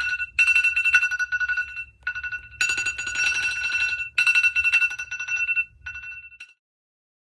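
Many phone ringtones and alarm clocks going off together, led by a shrill electronic alarm beep that repeats in runs of about a second and a half with short breaks, over a faint low buzz. Everything stops abruptly about six and a half seconds in.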